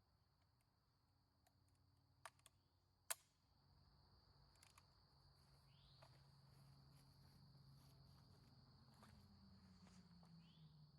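Near silence: a faint steady high-pitched tone, a couple of small clicks about two and three seconds in, and a faint low hum that slides down in pitch near the end. No gunfire.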